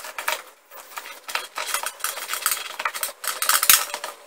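Blood-pressure cuff's cloth sleeve rustling and scraping as its rubber bladder and tube are worked inside it by hand: an irregular run of short, scratchy noises, loudest about three and a half seconds in.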